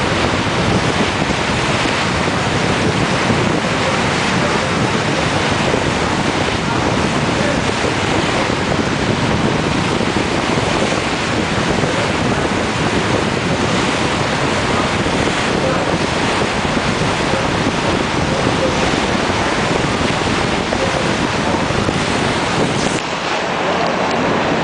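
Steady wind buffeting the microphone over the rush of water around a moving boat.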